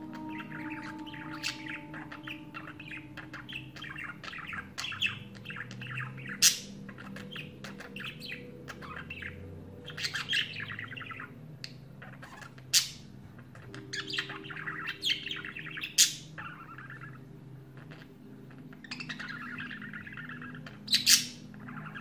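Budgerigar warbling, the chattering song a male sings to females: a continuous run of fast twittering notes, broken by several loud, sharp chirps, two of them close together near the end.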